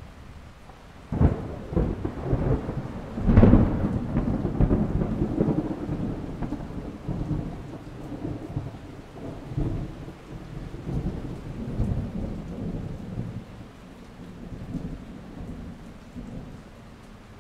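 Thunder: a sharp clap about a second in, a louder crack about two seconds later, then a long rolling rumble that fades slowly over steady rain.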